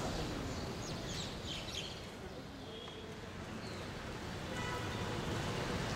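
Steady hiss of heavy rain falling on water, foliage and paving, with a few bird chirps about a second in.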